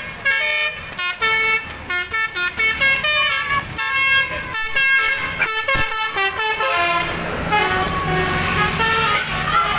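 Basuri telolet musical bus horn playing a fast tune of short stepped notes, which stops about seven seconds in; a steadier rumbling noise follows.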